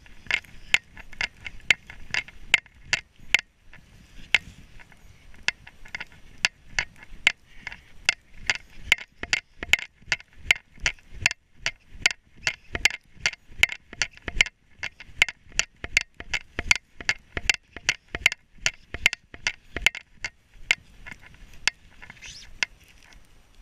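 Footsteps crunching in snow at a steady walking pace, about two to three crisp crunches a second, with a brief pause about three seconds in and a lull near the end.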